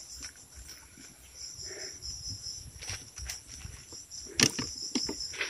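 Insects chirring steadily in a high pitch, with several sharp clicks and knocks, the loudest about four and a half seconds in, from a metal tree-pruner head and pruning saw blade being handled and fitted together.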